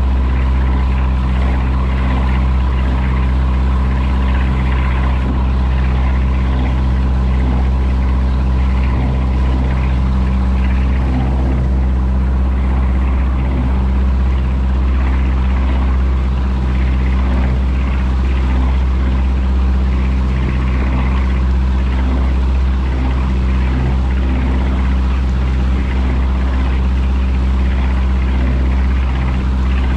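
Boat engine running steadily at cruising speed, a constant low hum, with water rushing and splashing in the wake.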